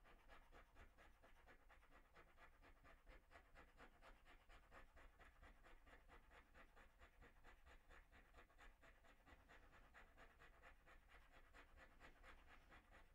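Faint, quick, even strokes of a freshly hardened steel hand scraper cutting across a brass plate. The scraper is biting into the brass, the sign that the hardening took.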